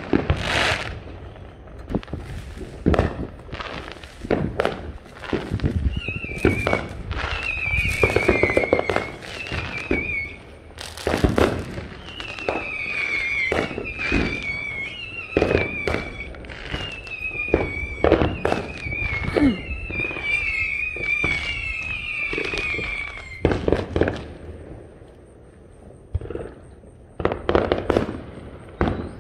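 Consumer fireworks going off on all sides: many irregular bangs and crackling pops. For much of the middle, a run of high, warbling whistles sounds one after another, each falling in pitch.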